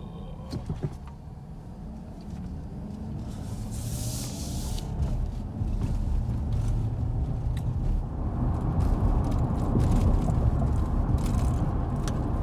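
Car engine and road noise heard from inside the cabin, getting louder as the car picks up speed, with a few light clicks near the start and a brief hiss about four seconds in.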